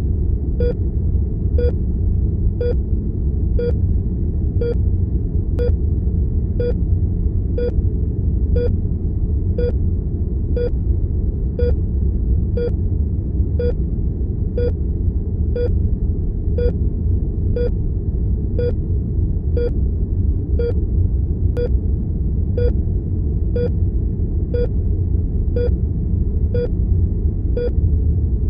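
Heart monitor beeping steadily about once a second, short identical tones over a steady low rumbling room tone.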